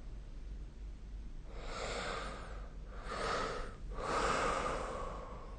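A sleeping person breathing noisily: three airy breaths about a second apart, with none of the deep rumble of a full snore.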